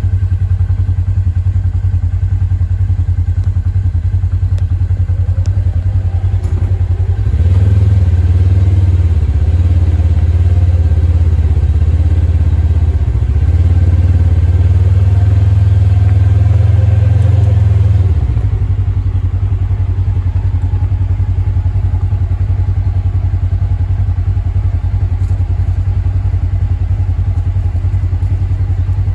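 Side-by-side UTV engine running at idle, with a louder stretch of about ten seconds in the middle where its pitch wavers up and down.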